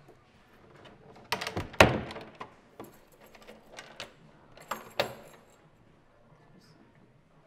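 A wooden door banging shut with a deep thud and a rattle of its latch, followed by a few lighter clicks and knocks.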